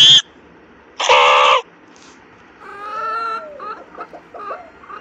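Domestic rooster calling: a short loud call at the very start and a longer one about a second in. Softer calls that waver in pitch follow from about two and a half seconds in.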